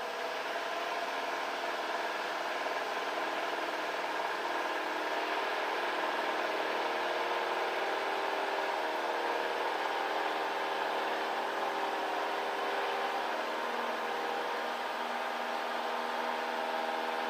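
Cessna 172 Skyhawk's four-cylinder piston engine and propeller running steadily at high power for the takeoff and climb-out, a constant drone.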